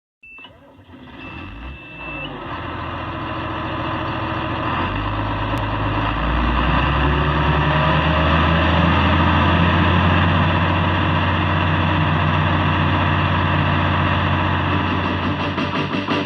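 A large farm machine's engine running, building up over the first several seconds to a loud steady drone. A short high-pitched beep sounds twice near the start.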